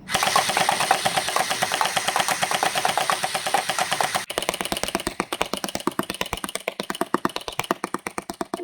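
Electric gel blaster firing rapid fire: a fast, even run of clicks, about ten a second. The sound breaks off abruptly a little over four seconds in and carries on slightly quieter.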